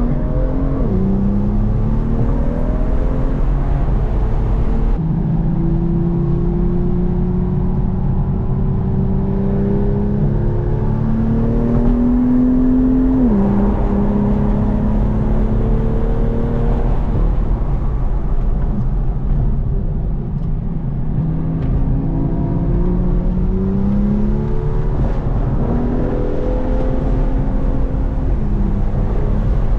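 BMW M2's turbocharged straight-six heard from inside the cabin at track pace, its pitch climbing under throttle and dropping sharply at each quick dual-clutch upshift, several times over.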